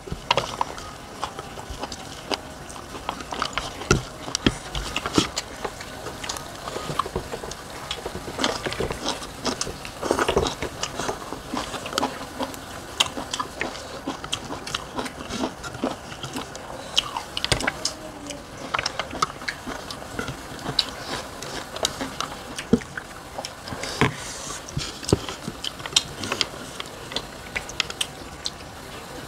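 Two people eating with their hands: chewing, mouth smacks and fingers working rice and steamed fish on plates, an irregular run of small clicks and smacks.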